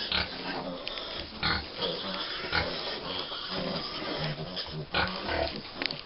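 Five-week-old American Guinea Hog piglets grunting in irregular short bursts, over the rustle of straw bedding.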